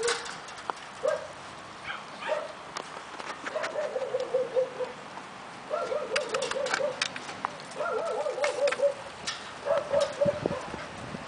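A young dog whining and whimpering in wavering, quavering runs about a second long, repeated several times, with scattered sharp clicks and rattles in between.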